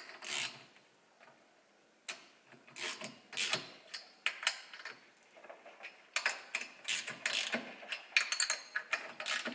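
Socket ratchet clicking in short runs as the cylinder head fasteners are snugged down by hand, with a pause about a second in before the clicking starts again.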